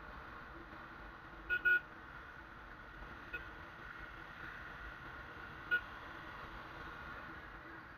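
Steady road and riding noise of a motorcycle in city traffic, picked up by a helmet camera. A vehicle horn gives a quick double toot about a second and a half in, a faint toot a little past three seconds, and a single short toot near six seconds.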